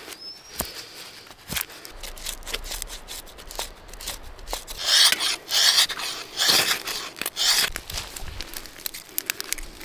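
Repeated scraping, rasping strokes with scattered sharp clicks, the strokes loudest about five to eight seconds in.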